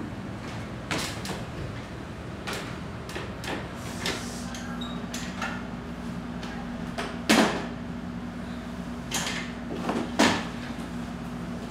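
Irregular knocks and thumps as a metal stepladder is handled and shifted on the floor, the loudest about seven seconds in and again near ten seconds. A low steady hum runs underneath from about four seconds in.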